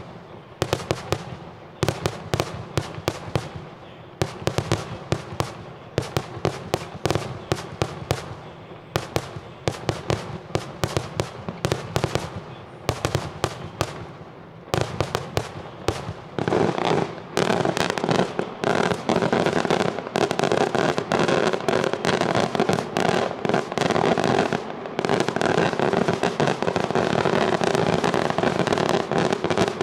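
Daytime festa fireworks barrage (kaxxa tal-ħruġ): a fast irregular string of sharp bangs for about the first half, then from about halfway through a dense, nearly continuous crackle of overlapping explosions.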